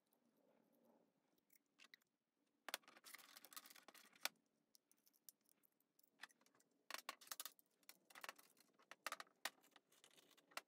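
Faint clinks and rattles of metal KF25 vacuum fittings and quick clamps being handled. They come in short clusters about three seconds in and again from about seven seconds.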